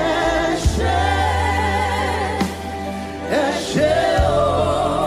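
Live gospel worship music: voices singing long held notes with vibrato over keyboard and a sustained bass line.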